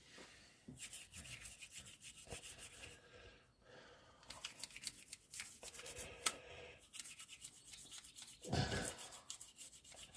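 Old toothbrush scrubbing grime out of a Kärcher pressure washer's pump parts: quick back-and-forth bristle strokes, faint, stopping briefly about three seconds in before starting again.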